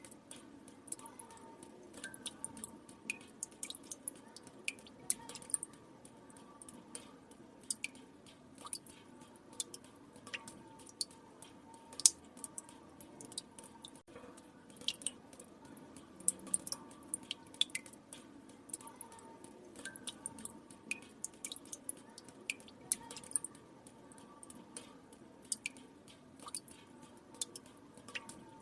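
Water drops falling one at a time into still water, making irregular sharp drips and small plinks, about one or two a second, over a faint steady background hiss.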